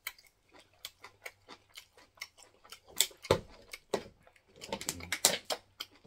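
Wet, sticky mouth clicks and smacks of fufu and waterleaf soup being eaten by hand, close to the microphone: an irregular run of small clicks, with a few louder smacks about three seconds in and again about five seconds in.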